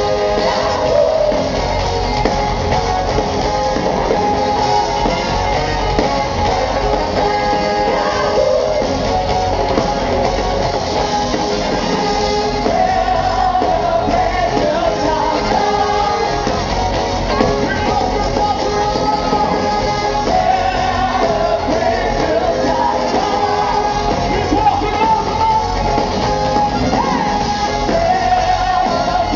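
Live soul band playing loud and without a break: electric guitar, bass, drums and a horn section, with voices singing over it.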